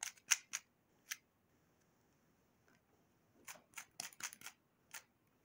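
Magnetic YJ Zhilong mini 3x3 speed cube being turned by hand: faint, quick clicks of its layers snapping into place. There is a short run of clicks at the start, a pause of about two seconds, then another run.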